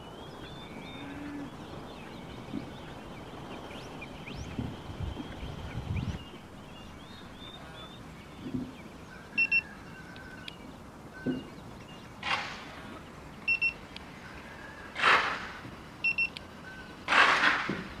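Digital thermometer giving short double beeps three times as it takes readings of the cooling coil. Three short bursts of hiss come in the second half, louder than the beeps, over a steady low hum.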